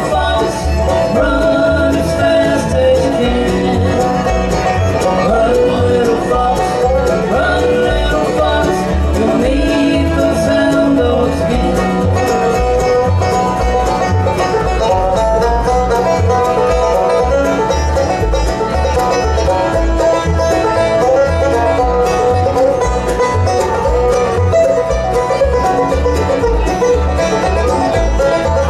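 Bluegrass band playing an instrumental break live, with banjo, guitar and fiddle over a steady beat.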